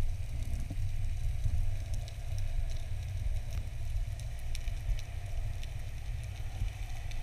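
Underwater ambience through an action camera's waterproof housing: a steady low rumble of water moving past the housing, with faint crackling clicks scattered throughout.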